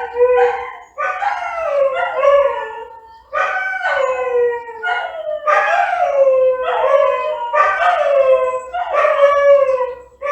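A dog howling in a string of short wailing howls, about one a second, each sliding down in pitch.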